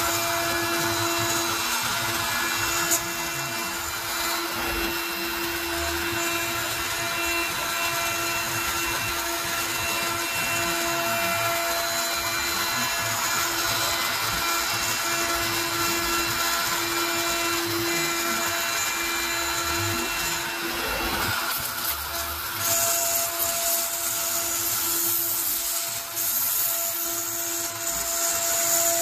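Onefinity CNC router's spindle running steadily as a single-flute upcut spiral bit cuts 3/8-inch cast acrylic, a constant whine over cutting hiss. The cutting noise turns harsher and brighter about three-quarters of the way through.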